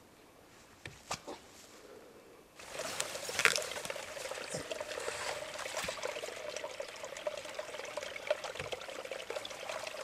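Water trickling and running, starting suddenly about two and a half seconds in after a few soft clicks.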